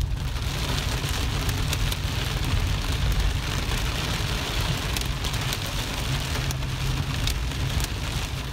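Heavy rain pelting a car's windshield and roof, heard from inside the cabin as many small patters over the low rumble of the car driving.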